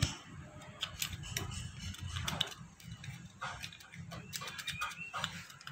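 Irregular light metal clicks and taps as the removed car AC compressor pulley and its bearing are handled.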